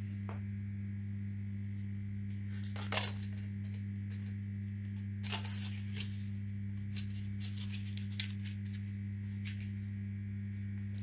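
Steady low electrical mains hum, with a few faint clicks and rustles of small parts being handled, the loudest about three seconds in.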